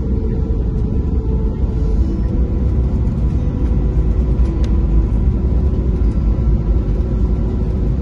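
Cabin noise of an airliner rolling along the runway after landing: a steady low rumble from the wheels and jet engines, with a faint steady engine hum above it.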